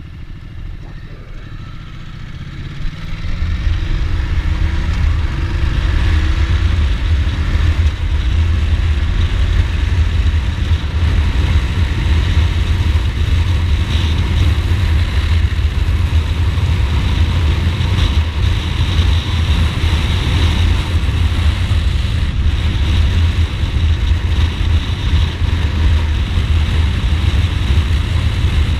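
Ducati Multistrada motorcycle accelerating on the road, its engine note rising in short steps through the gears. From about three seconds in, a heavy low rumble of wind on the microphone at speed takes over.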